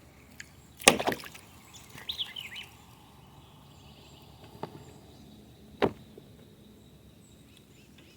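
Quiet outdoor background broken by a few sharp knocks of gear being handled aboard a kayak while a small hooked fish is brought in, the loudest about a second in and two more a few seconds later. A brief bird chirp comes about two seconds in.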